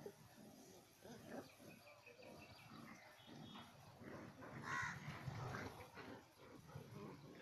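Puppies play-fighting, with faint growls and one short high cry a little past the middle.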